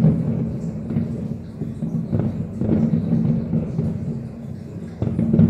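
Distant fireworks booming in a continuous rolling rumble, with scattered sharper bangs and crackles from many shells bursting at once. It eases off shortly before the end, then surges back with a loud burst near the end.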